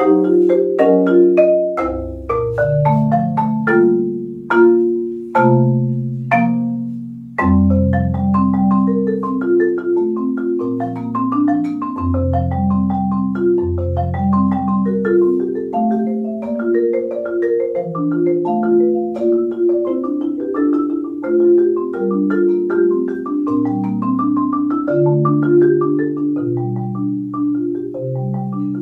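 Solo concert marimba played with mallets: flowing broken-chord patterns in the middle register over deep, ringing bass notes. There is a brief break just before a low bass note about seven seconds in.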